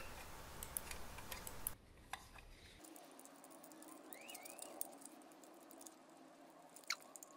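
Faint, scattered small clicks and ticks of fingers handling a circuit board, its metal shield and a screw, more of them in the first two seconds and again near the end.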